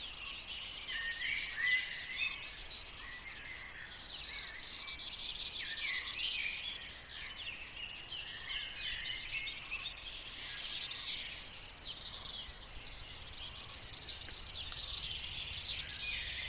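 Morning chorus of many small birds chirping and trilling over one another without a break, over a faint low rumble.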